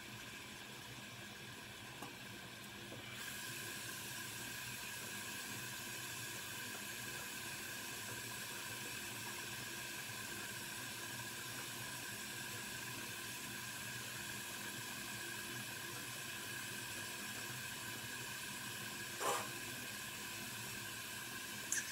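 Water running steadily from a bathroom tap or shower as a hiss that rises about three seconds in, when the flow opens up. Two short sounds come near the end.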